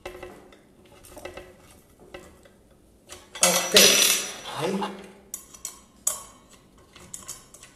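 Light metal clinks and scrapes as the blade bolt, flange and blade are loosened and taken off a Bosch GKS 140 circular saw with the spindle lock held. The sounds are scattered clicks, busiest and loudest about halfway through.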